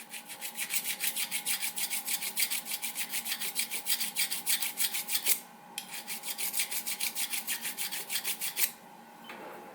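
Hand hone stroked rapidly back and forth across a lathe parting tool, sharpening its cutting edge: an even scraping, about five or six strokes a second, with a short pause about five and a half seconds in before the strokes resume and then stop near the end.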